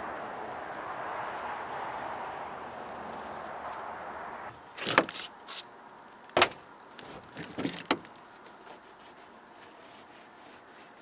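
Hand cleaning of the truck's brake-light mounting area with degreaser: a steady rubbing of a rag for about four seconds, then several short, sharp noises and a single hard click near the middle.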